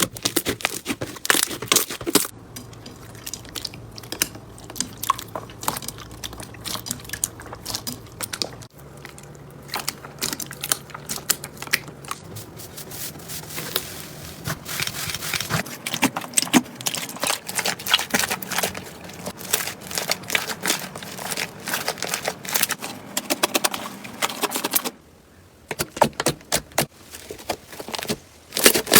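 Slime being squeezed and worked by hand, giving dense runs of small crackling and popping clicks. The sound changes about nine seconds in and drops out briefly near the end.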